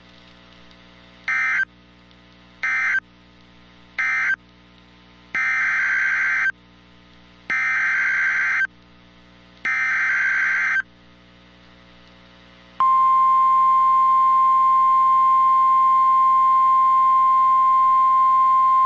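NOAA Weather Radio SAME alert signalling. Three short end-of-message data bursts come first, then three longer buzzing header data bursts for a new alert. About 13 seconds in, the steady 1050 Hz warning alarm tone starts and holds.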